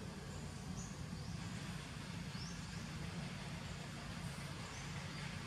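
Outdoor background ambience: a steady low hum with a few faint, short high chirps scattered through it.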